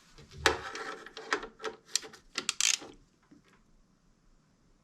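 Socket ratchet turned by hand, clicking in short irregular runs with a few metal knocks, then stopping just under three seconds in.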